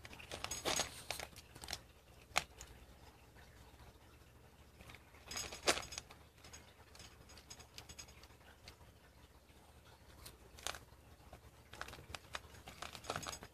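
Cat eating dry kibble from a stainless steel bowl: faint, scattered crunches and clicks, with louder clusters near the start, around the middle, and about three-quarters of the way through.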